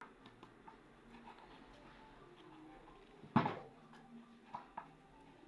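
Quiet room noise with faint scattered ticks, one sharp knock about three and a half seconds in, and two small clicks shortly after.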